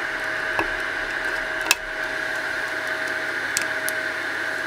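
AnyCubic i3 Mega 3D printer running with a steady whir and a hum. Over it, a few sharp clicks of 3D printed PLA parts being pushed together and handled, the loudest less than two seconds in.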